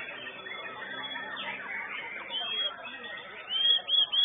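Several white-rumped shamas (murai batu) singing at once, a dense tangle of overlapping whistles and trills. A few loud, sharp whistled phrases come near the end.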